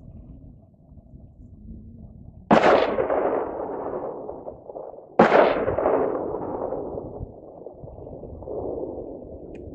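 Two gunshots about two and a half seconds apart, each a sharp crack followed by a rolling echo that dies away over a second or two.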